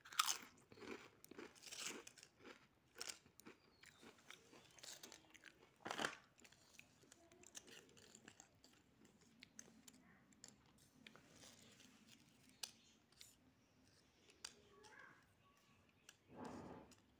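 Ridged potato chips crunching and crackling as they are crushed and broken by hand, in irregular sharp cracks. The cracks come thick in the first few seconds, with a loud one about six seconds in, and thin out after that.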